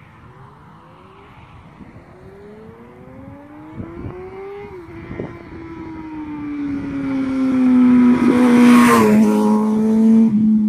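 Suzuki GSR600 motorcycle's inline-four engine through an aftermarket Devil stainless-steel exhaust, approaching under acceleration. Its note climbs in pitch with an upshift about five seconds in, grows loud as it passes close by around nine seconds in, then falls in pitch as it moves away.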